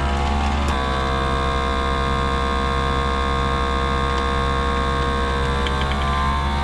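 Countertop vacuum sealer's pump motor running steadily, drawing the air out of a bag so it pulls tight around its contents. The pitch creeps slightly upward near the end as the vacuum builds.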